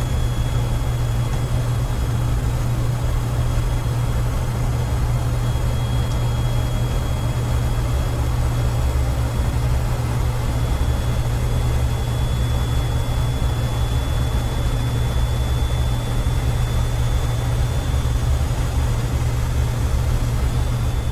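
Boeing 727-100F flight deck in the climb: a steady, loud cockpit drone of airflow and engines, heaviest in a deep low rumble, with a faint high-pitched whine running through it.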